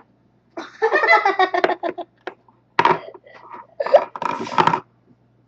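Children's voices in short, excited, unclear bursts, with some giggling, over a faint steady low hum.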